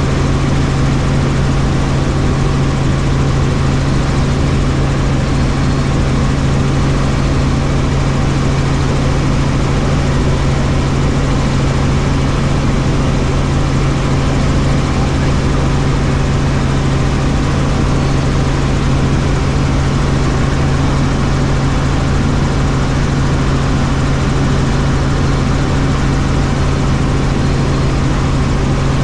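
Helicopter in flight: a steady, loud drone of engine and rotor with a strong low hum and an even rushing noise, with no change in pitch or level.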